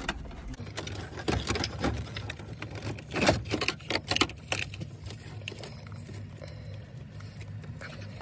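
Plastic wiring-harness connectors clicking and rattling as they are unplugged from behind a pickup's dashboard stereo: a run of sharp clicks and knocks, loudest about three seconds in, then quieter fiddling with the wires over a low steady hum.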